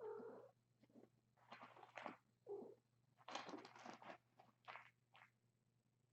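Faint cat calls, one short call at the very start and another about two and a half seconds in, with several short scratchy noises between and after them.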